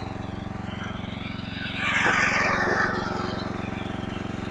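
Simplicity rear-engine riding mower's engine running steadily with the cutting blades turning. About two seconds in, a louder rushing swell rises and falls for about a second.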